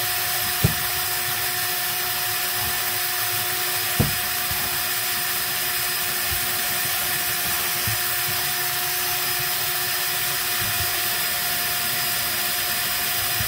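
Cordless drill running steadily as its bit bores the pivot hole for a circle cutter into a galvanized sheet-metal duct plenum. Two short sharp clicks come about a second in and about four seconds in.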